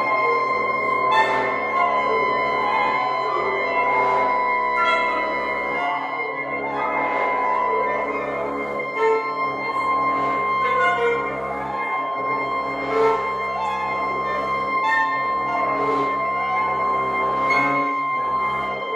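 Mixed wind sextet of flute, oboe, French horn, saxophone, bassoon and clarinet playing contemporary chamber music: one high note held steadily while short notes are scattered around it over a low tone that breaks off every few seconds.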